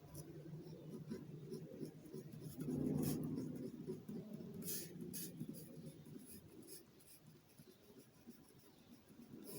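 Faint scratching strokes of a pen drawing a diagram, in short irregular strokes. A louder low murmur rises and fades about three seconds in.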